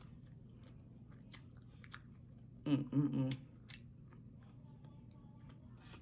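Close-up chewing and small scattered clicks as chicken wing meat is eaten and picked off the bone by hand, with a short voiced phrase about three seconds in.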